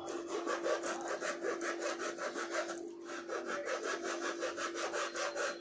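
A blade sawing back and forth through the paper tube of a skyshot firecracker: quick, even scraping strokes, about six or seven a second, with a short break about three seconds in.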